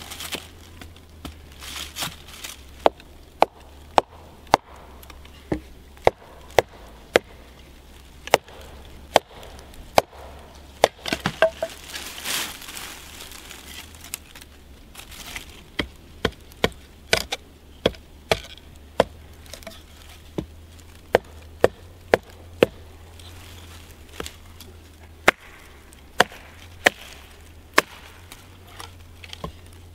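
Wolf Valley Forge Trekker axe chopping and splitting small pieces of dead wood against a log: dozens of short, sharp knocks, roughly one or two a second, with a few quick flurries around the middle.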